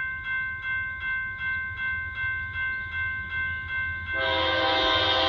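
Railroad crossing bell ringing steadily at about three strikes a second. About four seconds in, the approaching BNSF freight locomotive's horn sounds a loud, steady chord over it.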